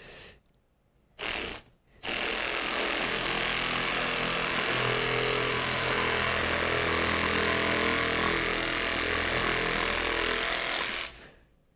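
Handheld electric power shear cutting a sheet-metal blank. A short burst about a second in, then it runs steadily for about nine seconds and stops near the end.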